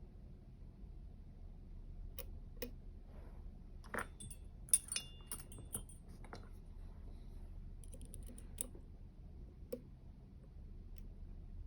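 Small metallic clicks and ticks of a dimple pick and tension wrench working the pins of a U-Shin Showa NX three-row dimple lock. They come in scattered groups, busiest around the middle, over a low steady hum.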